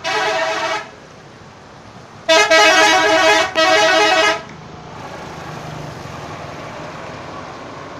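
Bus 'telolet' multi-tone musical air horn playing: one blast cuts off about a second in, then two longer blasts follow back to back around two to four seconds in. Steady vehicle noise follows.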